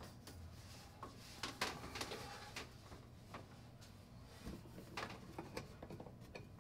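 Light clicks, knocks and rustles of hands working at the end of a newly hung LED light fixture, handling its power cord and hanging chain, over a faint steady low hum.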